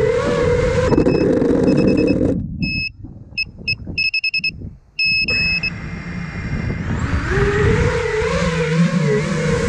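FPV quadcopter's motors and propellers whining, then cutting out about two and a half seconds in as the drone sits on the ground. Short high electronic beeps come in about a second in and carry on in broken bursts while the motors are stopped. The motors spin back up a little after five seconds and run with a wavering whine to the end.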